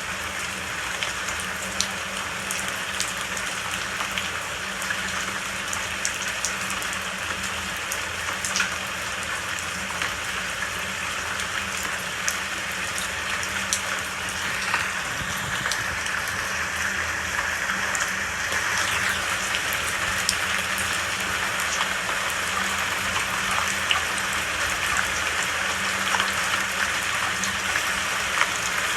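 Steady rain falling, with individual drops ticking sharply on a surface; it grows slightly louder about two-thirds of the way through.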